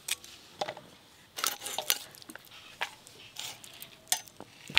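Irregular sharp taps and clinks of hand food preparation: a bonti blade cutting water-lily stems and pieces of raw rohu fish being handled on a steel plate.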